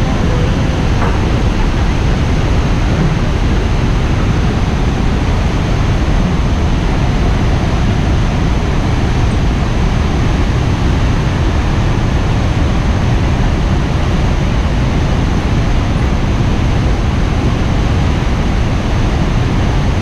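Loud, steady rush of the Iguazu Falls waterfall, heaviest in the low end, with no breaks or changes.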